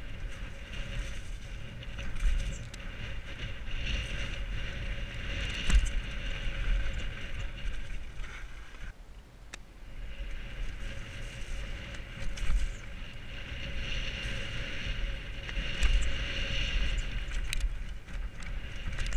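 Helmet-camera audio of a mountain bike descending a dirt trail at speed: wind rushing over the microphone and tyres rolling over dirt and gravel, with the bike rattling and a few heavier thumps over bumps. The noise dips briefly about halfway through.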